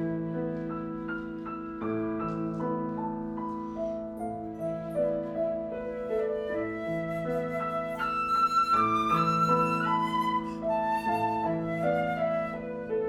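Flute playing a slow melody over a repeating piano accompaniment; the flute line climbs higher and grows louder about two-thirds of the way through.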